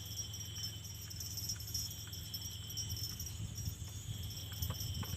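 Steady chorus of insects trilling at several high pitches at once, over a low background hum.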